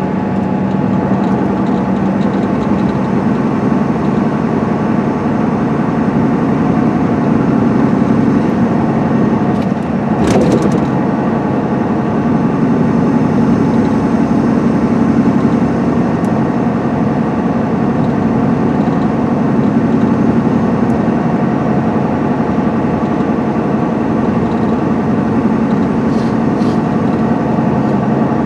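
The Cummins ISM inline-six diesel of a 2010 MCI D4500CL coach running steadily at highway speed, with road noise, heard from inside the passenger cabin. A single sharp knock about ten seconds in.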